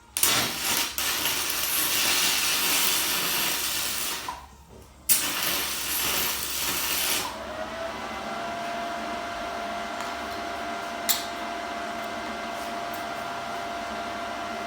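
Stick-welding arc from a 6010 electrode crackling and hissing in two runs, about four seconds and then about two seconds with a brief break between, as tack welds go down on steel square tubing. After that a quieter steady hum with a faint tone, and one sharp click.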